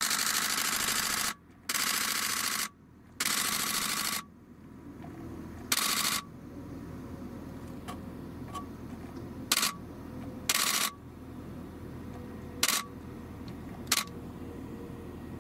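Still camera shutter firing in rapid bursts: three long bursts in the first four seconds, then five short ones spread through the rest, over a steady low rumble.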